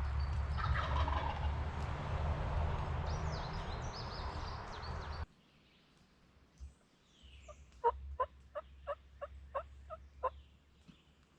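Wind buffeting the microphone with a distant wild turkey gobble about a second in. After a sudden drop to quieter woods, a run of about eight evenly spaced turkey yelps comes about three a second.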